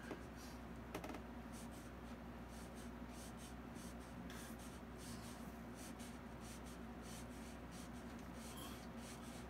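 Fine script brush stroking paint onto canvas: a faint string of short, irregular scratchy strokes as individual hairs are painted in, over a steady low hum.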